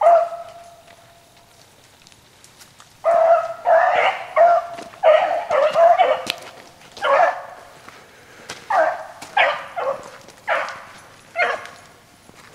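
Young hounds barking and yelping in a string of about a dozen short, sharp calls, starting about three seconds in: the dogs giving tongue on a rabbit that has just jumped from the brush.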